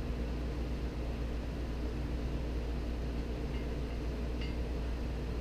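Steady low hum of a running motor, with two faint ticks about three and a half and four and a half seconds in.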